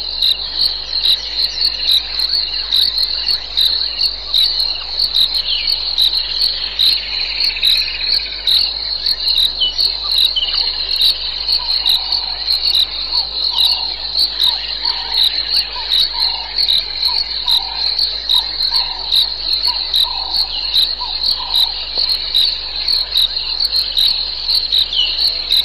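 Loud chorus of insects shrilling steadily, pulsing about three times a second. From about halfway through, fainter short calls repeat underneath, roughly once a second.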